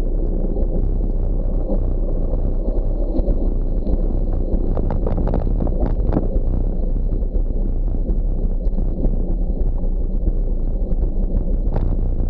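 Wind rushing over the microphone of a camera on a moving gravel bike, mixed with the tyres rolling over a gravel road. A few sharp clicks and rattles come about halfway through and again near the end.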